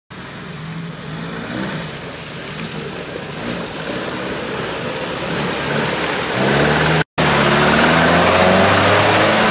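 UAZ-469 off-roader's engine revving as it churns through deep mud ruts, its revs rising and falling. The sound breaks off for an instant about seven seconds in and is louder after that.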